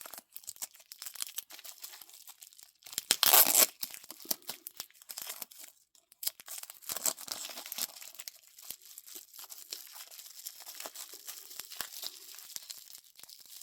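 Packing material being torn and crinkled by hand while a wrapped pocket knife is unwrapped, with many small crackles and one loud rip about three seconds in.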